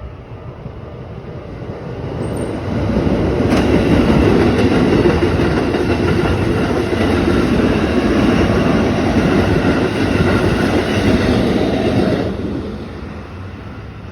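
A Keikyu electric train passing close by at a level crossing: the rumble and clatter of its wheels on the rails swells over the first couple of seconds, stays loud for about ten seconds, then falls away quickly as the last car goes by.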